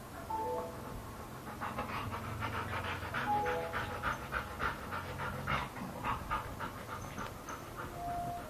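A puppy panting in quick, even breaths, about three a second, starting a second or so in and running for several seconds, over faint soft background music.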